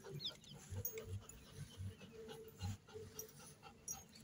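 A large Caucasian–German Shepherd mix dog panting softly with its mouth open, in an even rhythm of about two to three breaths a second.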